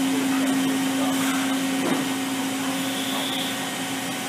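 Makino A77 CNC horizontal machining center running with its spindle turning during a spindle speed test: a steady mechanical hum with a strong, constant-pitched tone.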